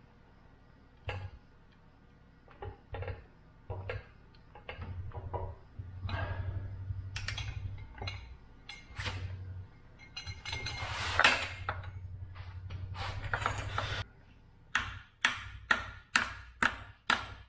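Breaker bar and socket straining on a seized camshaft sprocket bolt of a Subaru EJ25 flat-four, with metallic clicks, pings and creaking as force is loaded onto it. About three quarters of the way through, this gives way to about six sharp mallet blows on the steel tooling in quick succession.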